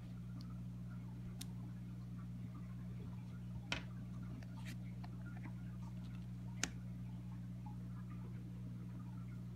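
A handful of short, sharp clicks and taps from a paracord grenade with a metal carabiner being handled and set down on a wooden table, the loudest about four and seven seconds in, over a steady low hum.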